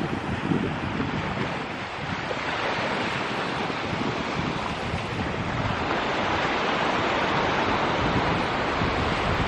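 Ocean surf breaking and washing up the shore, a steady noise that swells in the second half, with wind buffeting the microphone near the start.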